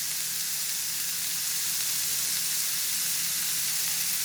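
Chopped vegetables with grated ginger and garlic sizzling steadily in a little hot oil in a pan, a constant high hiss as they sauté.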